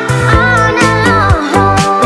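Background music with a steady beat over bass notes and a melody line that bends up and down in pitch.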